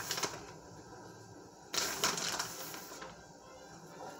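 Tongs clicking and scraping in a glass casserole dish as shredded vegan cheese is spread over pasta, with a louder scrape about two seconds in.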